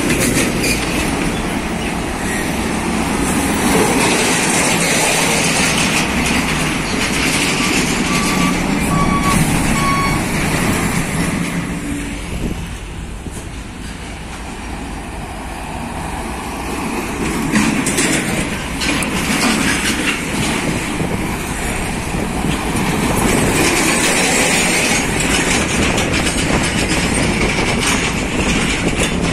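Heavy road traffic passing close by: trucks, including a container tractor-trailer, and motorcycles, with engine and tyre noise that eases into a brief lull midway and builds again as more trucks approach. A few short high beeps sound about eight to ten seconds in.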